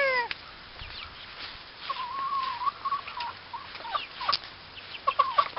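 Chickens calling in a wire pen: one drawn-out, wavering call about two seconds in, then short scattered calls.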